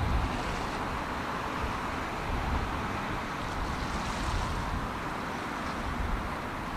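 Wind buffeting the microphone in uneven low gusts, over a steady wash of outdoor noise.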